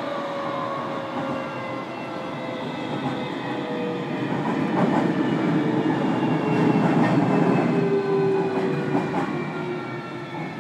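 Interior running sound of a JR Kyushu 305 series EMU motor car: the Toshiba permanent-magnet motors and VVVF inverter whine in several tones that fall slowly in pitch as the train slows. Underneath is a steady wheel-on-rail rumble with a few clicks from rail joints.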